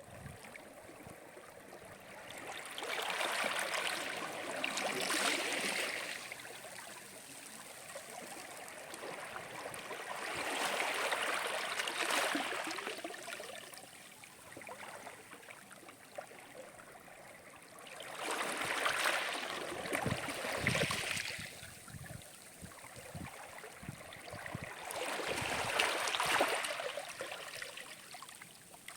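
Sea waves breaking and washing up the shore. Four waves come about seven seconds apart, each rising to a hiss and falling away.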